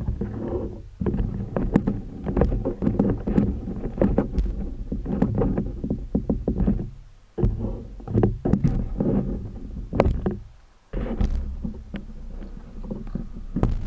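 Wind buffeting the microphone: a low rumble that swells and fades in uneven gusts, dropping out briefly about seven and eleven seconds in.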